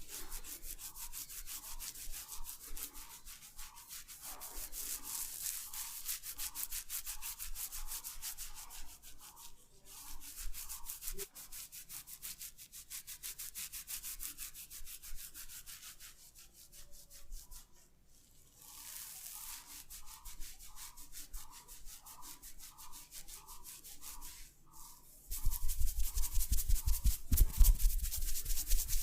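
Hands rubbing hair and skin in a massage, in rhythmic strokes about twice a second with a fine rasping texture. About 25 seconds in it grows louder, with quick low beats.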